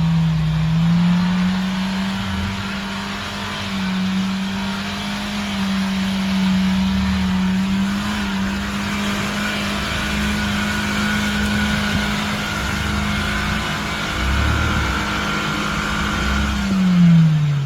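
Off-road vehicle's engine held at high, steady revs under load, with a low rumble beneath, the revs dropping away near the end.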